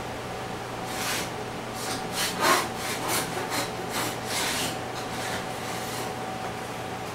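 A run of irregular rubbing or scraping strokes, about a dozen over some five seconds, the loudest a little past the middle, over a steady electrical hum.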